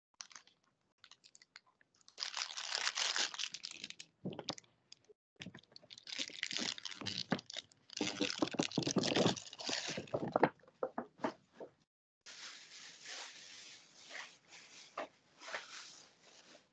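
Crackling, crunching noise coming through a video call's audio in irregular spells of a few seconds, each cutting off abruptly.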